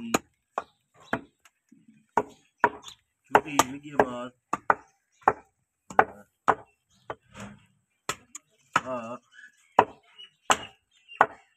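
Butcher's cleaver chopping beef on a wooden stump chopping block: sharp repeated chops at an uneven pace, about two a second. A voice is heard briefly twice.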